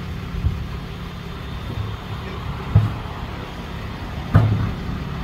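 Low, steady rumble of a motor vehicle's engine running, with a few dull thumps; the two loudest come just under three seconds and about four and a half seconds in.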